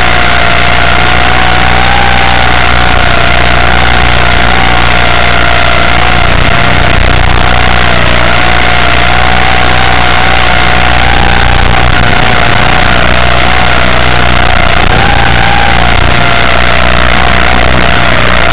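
Walkera radio-controlled model's motor and rotors whining steadily over heavy hiss, as picked up on board for FPV. The whine wavers slightly up and down in pitch with small throttle changes.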